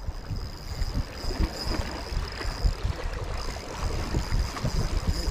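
Wind buffeting the microphone over water lapping at the fishing spot, a rumbling, uneven noise with a faint steady high tone above it.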